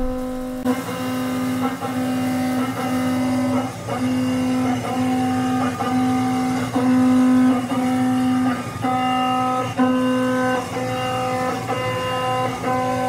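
Dormer 1-inch five-insert high-feed mill on a horizontal CNC machining centre, roughing the top faces of hot-rolled A36 steel blocks without coolant. It gives a loud, steady pitched tone with a stack of overtones, broken about once a second as the cutter moves in and out of the cut.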